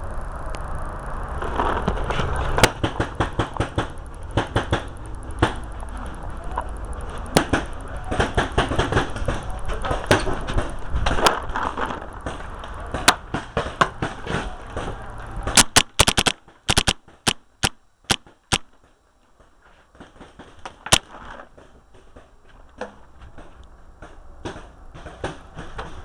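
Paintball guns firing, with scattered pops through the first half and a quick string of loud shots about sixteen seconds in. After that it goes quieter, with only a few shots.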